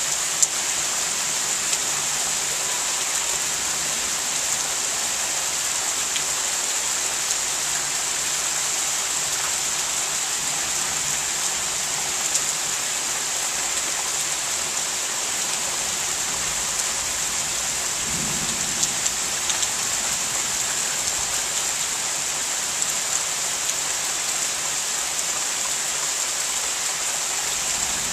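Thunderstorm rain falling steadily, a dense even hiss with a few sharp ticks of drops, and a brief low rumble about two-thirds of the way through.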